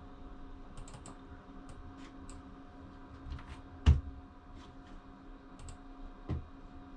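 Light clicks and taps of a computer keyboard and mouse being used, with a louder knock about four seconds in and a smaller one about six seconds in, over a steady low hum.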